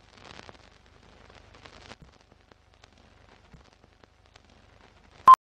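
Faint crackle and scattered clicks of an old-film countdown leader. Near the end comes a single short, loud, high beep: the sync beep of the countdown.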